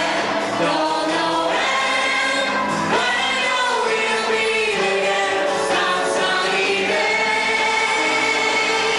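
A 1940s-style popular song sung by several voices in harmony, with long held notes over a light accompaniment.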